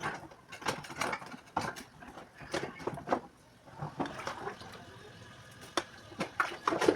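Scattered knocks and clicks of household items being handled, a few a second, with a quieter stretch in the middle.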